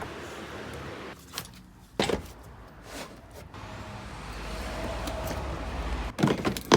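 Sharp knocks and clicks from handling metal swing-set parts and tools, with a louder clatter near the end, over a low rumble that swells in the middle.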